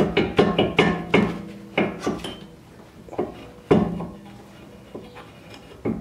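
A BMW E36 brake caliper being worked loose from the rotor: metal knocks and clunks as it is wiggled back and forth, a quick run of them in the first couple of seconds, then a few spaced knocks. Some knocks leave a short metallic ring.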